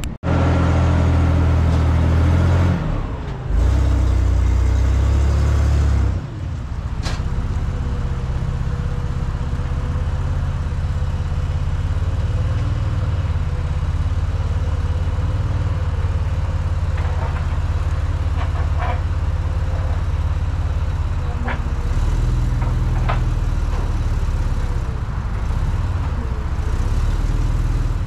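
A vehicle engine runs loudly for the first few seconds; then, after a cut, a propane-powered Hyster forklift's engine runs steadily as it lifts a heavy cable reel off a flatbed trailer, with a few sharp metal clanks. A reversing beep starts right at the end.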